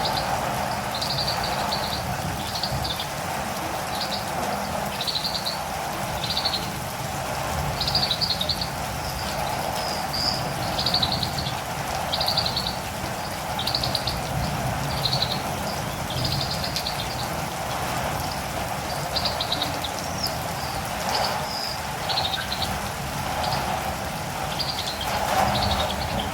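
Steady rainfall with a catirumbava (olive-green tanager) giving short, high chirps about once a second, thinning out with a few gaps in the later part.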